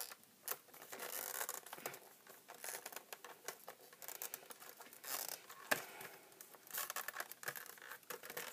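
Taped product packaging being worked open by hand: irregular clicks, crinkling and scraping as the tape and package are picked and pulled at.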